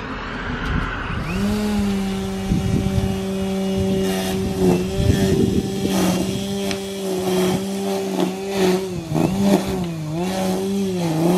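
EGO Power+ cordless battery string trimmer running: its electric motor spins up about a second in to a steady whine, with scattered clicks and slaps as the spinning line hits grass. Near the end the pitch dips and recovers several times.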